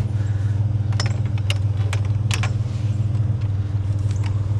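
Pickup truck driving, with a steady low engine drone and a few sharp clicks and rattles scattered through it.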